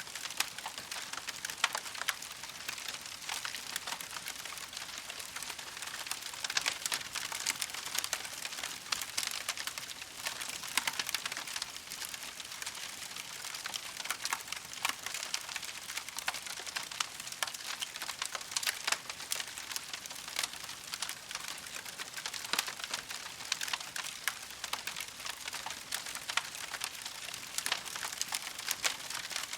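Campfire crackling steadily: a dense stream of small pops and snaps, with a few louder cracks standing out here and there.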